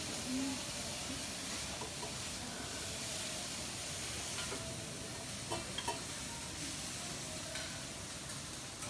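Food sizzling on a hot teppanyaki griddle: a steady frying hiss with a few small pops about five to six seconds in.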